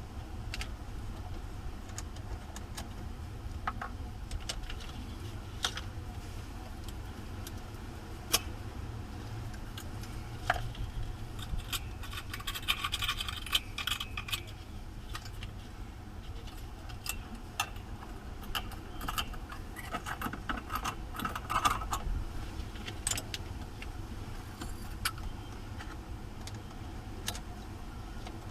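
Scattered metallic clinks and rattles of hand tools and battery hardware as cables are fitted to the batteries, busiest about midway and again near two-thirds through, over a steady low hum.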